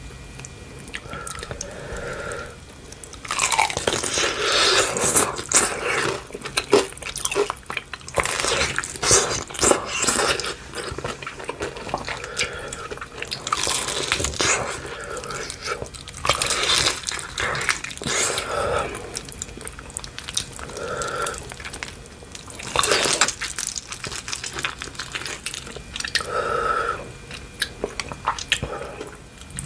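Close-miked bites into crispy fried chicken coated in hot sauce: crackling crunches of the coating followed by chewing, in repeated bouts with short pauses between them.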